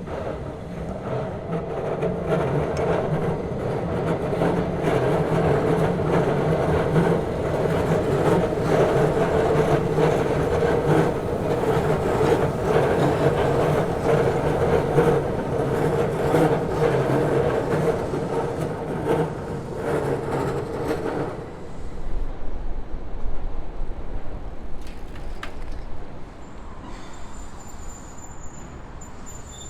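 Keihan Keishin Line train running past, a loud steady hum with rapid clicking, that drops away suddenly about 21 seconds in, leaving a low rumble and, near the end, a thin high tone.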